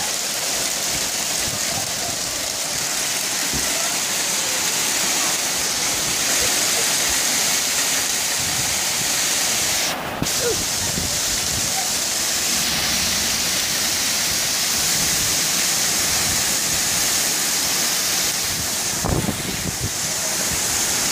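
Heavy thunderstorm rain pouring in a dense, steady hiss, driven by high winds. It breaks off briefly about halfway through, and a couple of low thumps come near the end.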